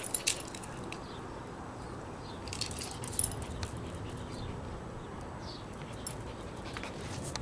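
A small dog moving about on concrete, its collar tags jingling with light clicks in two short bursts, at the start and about three seconds in, with a few faint ticks later.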